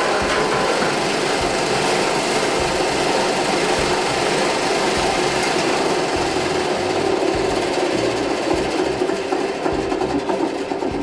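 Iron circular vibrating sieve running, a steady loud mechanical hum and rattle from its vibrating screen.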